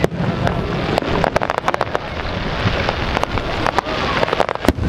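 Fireworks display: dense, irregular crackling and popping from bursting shells and crackling sparks, over a steady low rumble.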